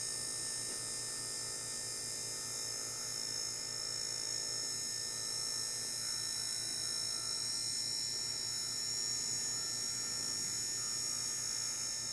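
Small permanent-magnet DC motor running at a steady speed: a steady high whine over a fast pulsing low hum.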